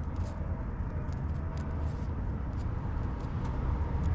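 Steady low rumble of outdoor background noise, with faint, scattered short ticks over it.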